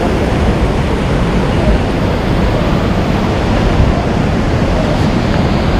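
Steady rush of a fast mountain stream tumbling over boulders into a pool.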